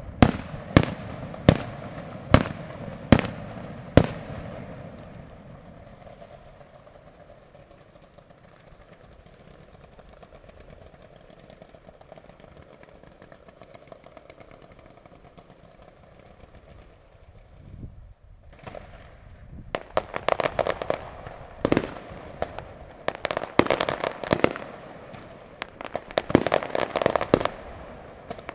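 Fireworks display: a run of loud shell bursts, about one a second, over the first four seconds, then a quieter steady hiss of burning sparks. From about twenty seconds in, dense volleys of many quick sharp cracks.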